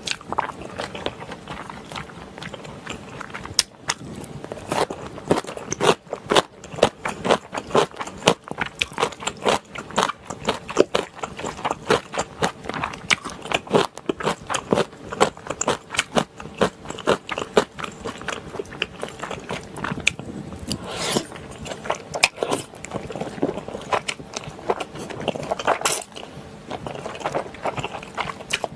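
Close-miked eating of wide Chinese glass noodles and spicy stir-fried pork intestines: slurping and chewing, a dense, irregular run of sharp wet mouth clicks.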